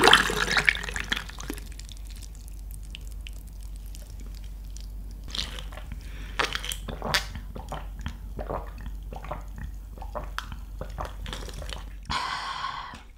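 Orange juice pouring into a glass of ice, tailing off over the first second or two. From about five seconds in come a run of gulps and sharp little clicks as the juice is drunk from the iced glass, then a short breathy sound near the end.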